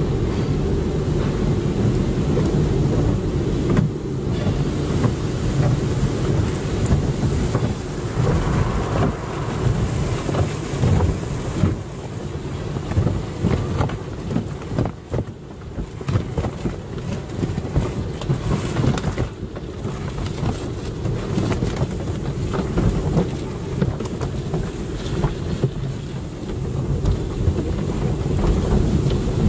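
Car wash: water spray pelting and drumming on a car's body, with a continuous rushing, rumbling noise that rises and falls.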